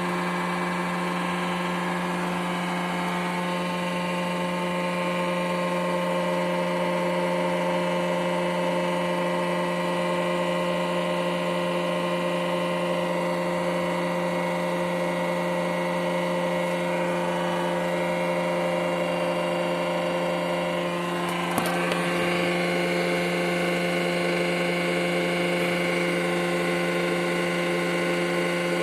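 1995 Renault Twingo engine idling steadily with an exhaust leak at the manifold gasket and the exhaust donut gasket. There is one brief click about two-thirds of the way through.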